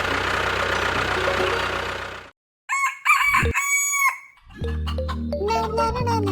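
A rooster crowing once, about three seconds in, after a steady noisy din cuts off abruptly. A steady low hum with a melody over it starts near the end.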